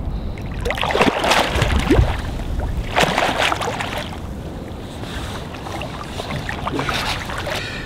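A large white sturgeon splashing and thrashing in shallow water at the bank as it is landed, in two loud bursts about a second in and about three seconds in, then quieter sloshing. Wind rumbles on the microphone.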